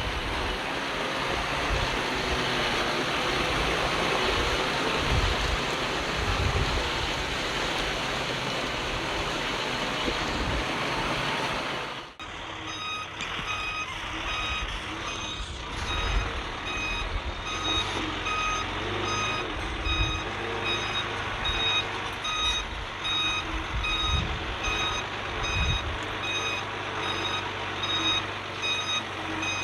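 Heavy earthmoving machinery working, a loud, even rumbling noise. It cuts off suddenly about twelve seconds in, giving way to a backup alarm beeping in a steady, evenly spaced run over a running diesel engine.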